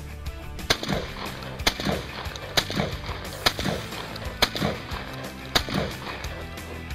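Six gunshots from a shoulder-fired long gun, fired at an even pace of about one a second, each with a short echo trailing after it.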